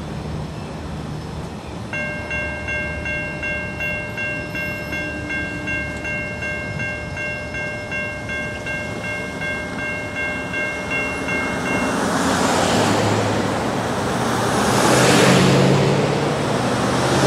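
Safetran Type 3 electronic crossing bell ringing in steady repeated dings, about two a second, as the crossing gates rise. It stops about twelve seconds in. Cars then drive over the crossing and get louder toward the end.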